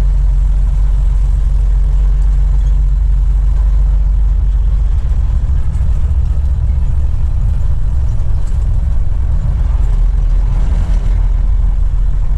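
Truck on the move: a steady low engine and road rumble.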